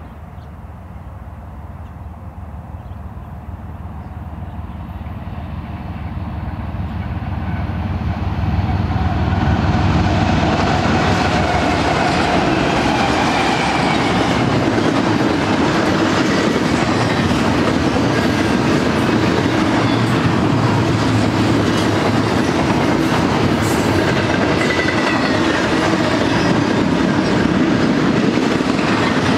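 BNSF double-stack intermodal train approaching and passing: the sound of its lead GE ES44C4 diesel locomotives grows steadily louder over the first nine seconds or so. After that the container-laden well cars roll by with a steady wheel clatter on the rails.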